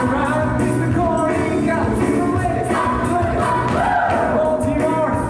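Singers performing a musical-theatre number live, their voices carried over instrumental accompaniment.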